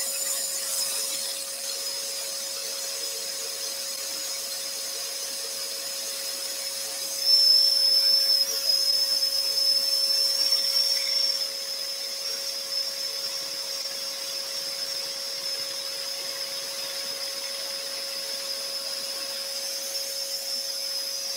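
Scroll saw running with a steady hum and a high whine, its blade cutting through a wooden board fed by hand. The cutting is louder for about four seconds, starting about seven seconds in.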